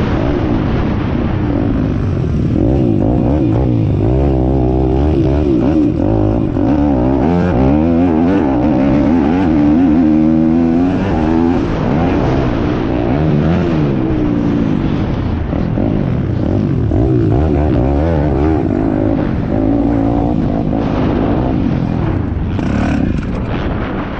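Pit bike engine being ridden hard on a dirt track, its pitch climbing and dropping again and again as the rider revs through the gears and backs off for turns and jumps. Wind buffets the microphone near the end.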